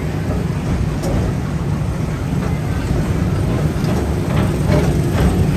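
PeopleMover ride car rolling along its elevated track, heard from on board: a steady low rumble.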